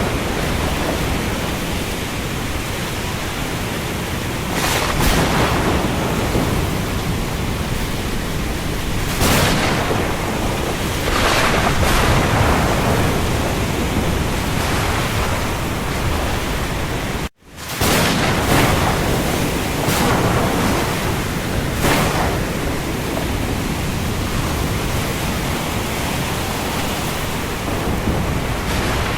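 Steady heavy rain falling on the sea, a dense hiss with a low rumble, swelling louder for a moment several times. About 17 seconds in it cuts out for an instant and comes straight back.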